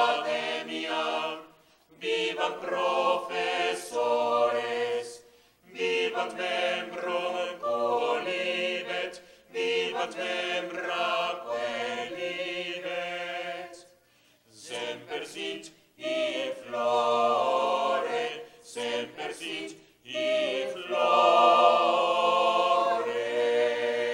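A small mixed choir of men's and women's voices singing a cappella, in phrases of a few seconds with short pauses for breath between them.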